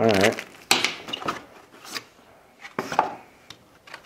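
Unboxing handling sounds: a few sharp taps and knocks with rustling as items are set down on the table and picked from a cardboard box.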